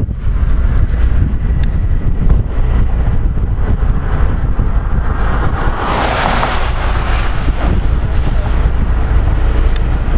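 Strong wind buffeting the camera microphone, a steady low rumble, with a louder rushing swell about halfway through.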